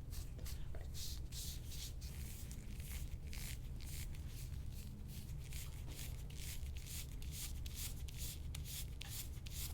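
Gua sha scraping tool drawn quickly and repeatedly over skin, a rhythmic rubbing scrape of about three strokes a second.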